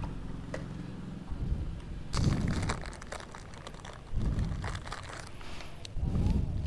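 Plastic biscuit packet crinkling and rustling as it is handled and opened, with three short louder rustles about two, four and six seconds in.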